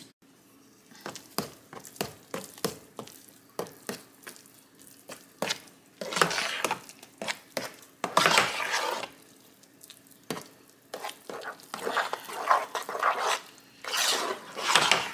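Metal spoon stirring a thick, wet chicken-dressing mixture in a baking pan. For the first few seconds it makes a run of light clicks and taps against the pan, then longer wet scraping strokes.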